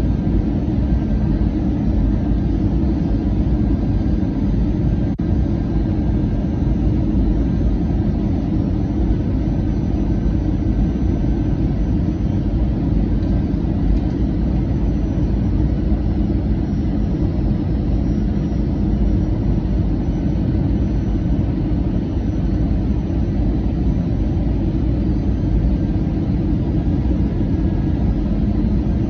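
Airbus A320-200 airliner's steady, even rumble of engines and airflow on its approach to land, deep and unchanging throughout.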